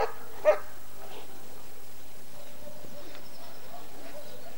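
German shepherd barking twice in quick succession right at the start. A dove coos faintly in the background afterwards.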